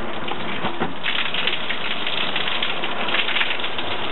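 Water from a hose spattering onto the fabric of an open umbrella, a dense pattering like heavy rain that grows louder about a second in.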